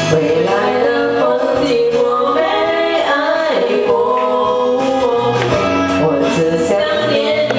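A woman singing a Chinese pop song into a karaoke microphone, her voice amplified over a loud karaoke backing track.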